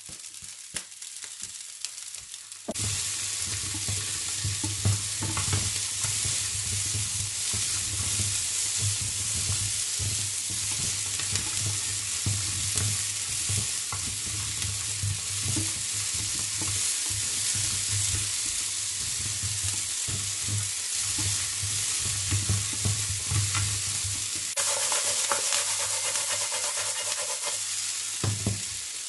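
King crab legs, onion, ginger and scallions sizzling in hot oil in a nonstick frying pan as they are stir-fried, with frequent knocks and scrapes of the spatula against the pan. The sizzle starts loudly a few seconds in, after a quieter start with a few clicks.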